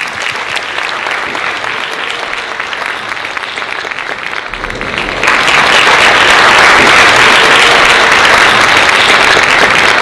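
Audience applauding, growing markedly louder about five seconds in.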